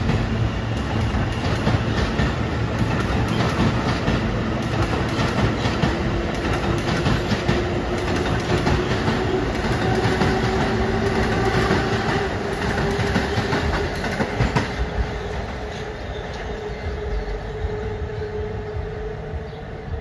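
R160 subway train with Alstom propulsion pulling out and accelerating: the motors' whine rises slowly in pitch over the clack of wheels crossing rail joints, growing fainter near the end as the train moves off.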